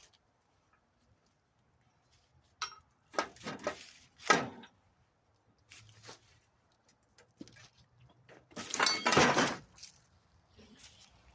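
Metal go-kart parts clinking and knocking as they are handled and fitted by hand, with a longer, louder clatter about nine seconds in.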